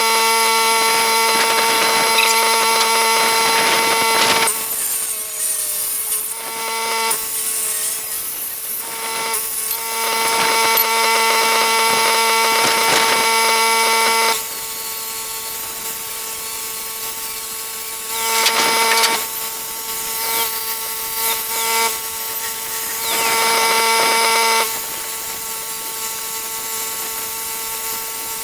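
Handheld angle grinder running with a steady high whine, cutting through the steel of a damaged wagon hitch. The clean whine drops back several times under a rougher grinding noise as the disc bites into the metal.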